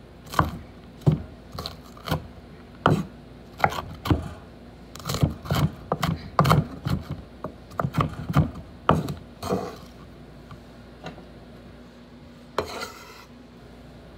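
Kitchen knife chopping sweet peppers and mushrooms on a wooden cutting board: irregular strikes, about two a second, that stop after about ten seconds. Near the end there is one short scraping sound.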